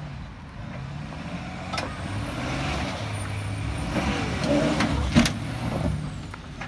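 Pickup truck engine running hard under load while it pulls another truck on a tow strap. It gets louder about two seconds in, with a high whistle rising and falling over it. A single sharp bang comes about five seconds in.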